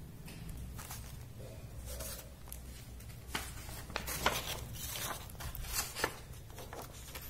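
Cut pieces of carton cardboard being handled and laid down on a plastic floor mat: a run of light taps, slides and rustles, most of them in the second half, over a low steady hum.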